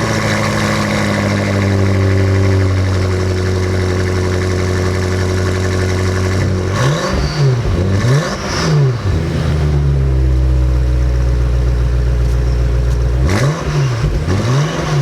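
2020 BMW M5 F90's twin-turbocharged V8 idling steadily, blipped twice in quick succession about seven seconds in and twice more near the end, the revs rising and falling straight back to idle each time.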